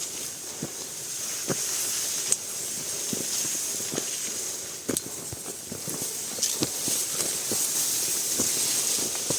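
A steady high hiss, with scattered light clicks and knocks at irregular intervals.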